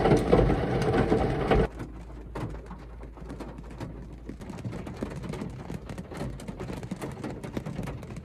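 Rain falling, a patter of many irregular drops ticking on a surface. It follows a louder sound that cuts off suddenly about a second and a half in.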